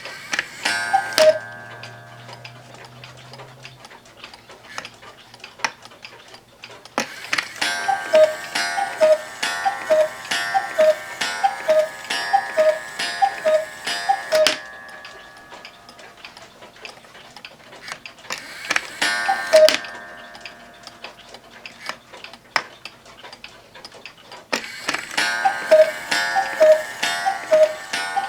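One-day mechanical cuckoo clock striking: its bellows sound two-note cuckoo calls, high then low, in a steady run of about ten. A single call follows later, and another run begins near the end, with sharp clicks where the runs start and stop.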